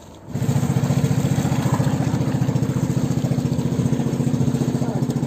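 A fishing boat's engine running steadily with a fast, even beat, coming in abruptly about a third of a second in.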